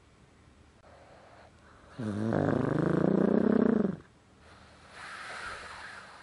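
A pug snoring: a faint breath about a second in, then a loud snore with a clear pitch lasting about two seconds, followed by a softer, airy exhale near the end.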